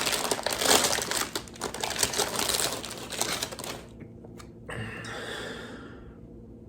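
Crackling, crinkling rustle of a snack bag being handled as a chip is taken out, dense for about four seconds, then a click and a shorter, softer rustle.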